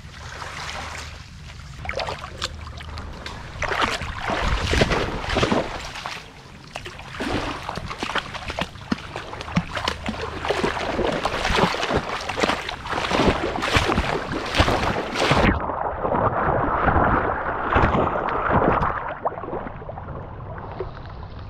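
A golden retriever puppy splashing and wading through shallow water, close to a microphone on his harness: irregular splashes and sloshing over a wash of water. About fifteen seconds in, the sound turns muffled.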